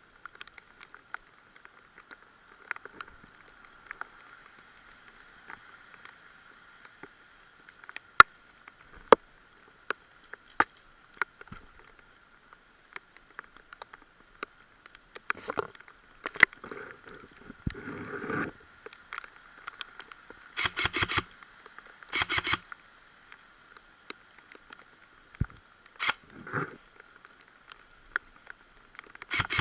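Footsteps and brush rustling along a wooded trail, with scattered sharp clicks and crunches. About two-thirds of the way through come two short bursts of rapid, rattling pulses.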